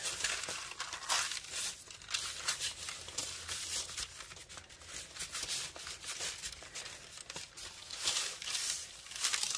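Parchment paper crinkling and rustling as it is handled and slid under a ball of bread dough: a run of irregular crackles, a little louder about a second in and again near the end.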